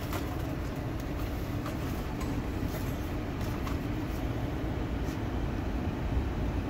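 Steady low rumble of an idling car heard from inside its cabin, with a few faint clicks and rustles.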